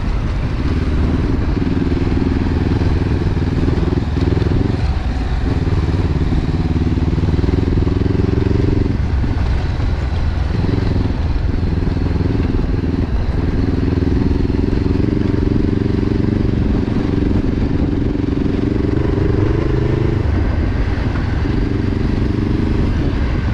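Motorcycle engine running on a dirt trail at a fairly steady throttle, its note dipping briefly several times, as when the throttle is eased off.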